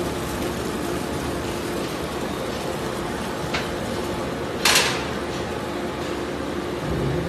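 Belt conveyor line running with shredded scrap tumbling from one conveyor onto the next: a steady machine hum and rumble of falling material. A sharp clatter stands out about four and a half seconds in, with a smaller one a second earlier.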